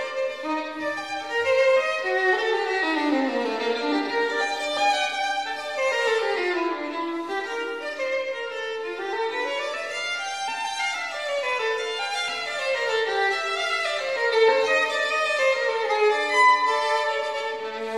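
Background music: a melodic instrumental line playing quick runs of notes that climb and fall again and again.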